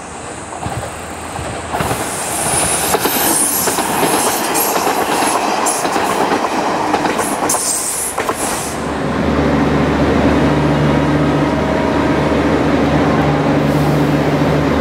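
Kiha 71 series diesel railcar train passing close by, building over the first two seconds and then loud with wheel-on-rail clatter for about seven seconds. About nine seconds in it gives way to the steady low hum of a Kiha 72 series diesel railcar idling at a station platform.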